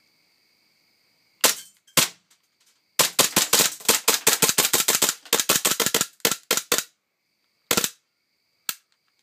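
WE-Tech M&P9 gas blowback airsoft pistol firing: two single shots, then a rapid run of shots for nearly four seconds, then two more single shots. The rapid run is the pistol going full auto, a malfunction in this pistol.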